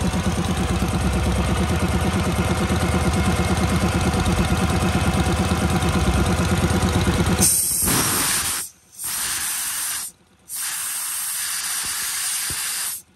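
The petrol engine of a portable air compressor, a Robin engine, runs with a steady beat. About seven and a half seconds in, a loud hiss of compressed air being let out takes over, in three blasts with short breaks between them.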